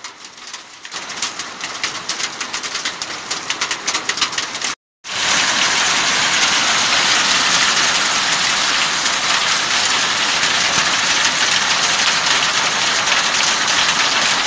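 Hailstorm: hailstones striking the ground and surfaces as many separate sharp clicks that grow denser, then, after the sound cuts out briefly about five seconds in, a loud, dense, steady hiss of heavy hail falling.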